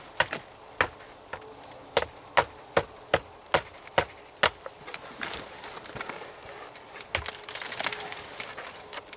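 Hard stones clicking and clinking against each other as rock pieces are handled, a dozen or so sharp knocks at an uneven pace, with brief scraping and rustling in between.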